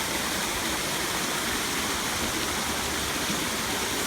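Water rushing steadily, an even unbroken roar of flowing water.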